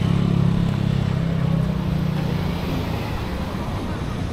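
A motor vehicle's engine running close by with a low drone, fading after about two and a half seconds as it moves away, over steady street traffic noise.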